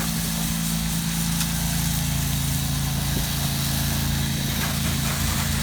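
Small engine of a pressure-washing rig running steadily at a constant speed, with an even hiss over it.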